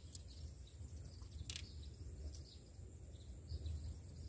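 Faint open-air wetland ambience: a steady low rumble with a few brief, sharp high bird chirps, the clearest about a second and a half in.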